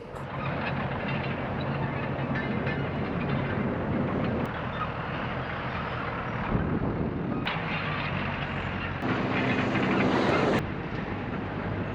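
A vehicle engine running steadily with a low hum. The sound changes abruptly several times, as at cuts between clips.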